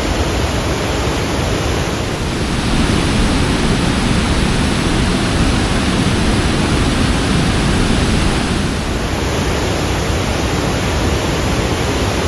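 Steady rushing of a powerful waterfall in full flow, Li Phi (Somphamit) Falls on the Mekong, running a little louder from about two seconds in until near the ninth second.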